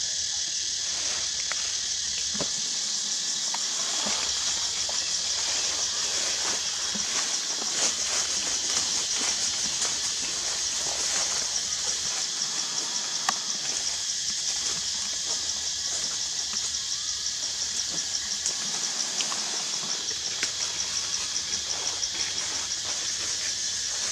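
Steady high-pitched drone of insects, with a fine pulsing texture, and scattered faint clicks and rustles.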